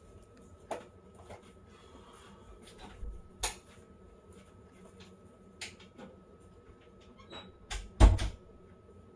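Scattered clicks and knocks every second or two, the loudest a quick cluster of thumps about eight seconds in.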